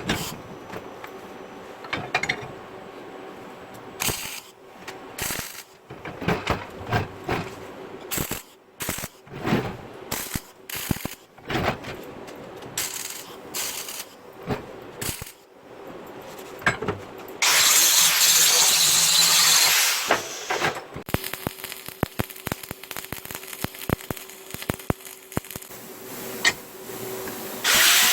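Metalworking shop sounds: scattered knocks and clanks as metal parts are handled, with a power tool running loudly for about three seconds past the middle.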